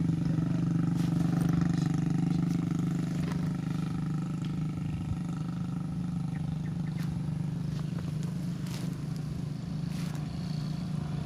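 A steady low engine hum, unchanging throughout, with a few faint clicks over it.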